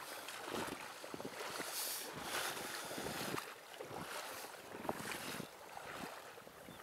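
Shallow water splashing and lapping around a wading angler's legs in irregular strokes, with wind buffeting the microphone.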